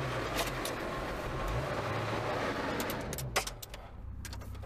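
Engine and road noise inside a moving Ford Mustang's cabin, the engine pitch shifting, which falls away about three seconds in as the car slows to a stop, followed by several sharp clicks and knocks.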